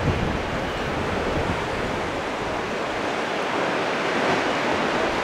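Steady rush of ocean waves breaking.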